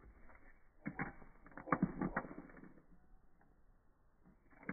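A black-capped chickadee's feet and beak clicking and scraping on a plastic seed dish among black sunflower seeds, heard slowed down as a cluster of clicks and scratches that ends about three seconds in, with one more click near the end.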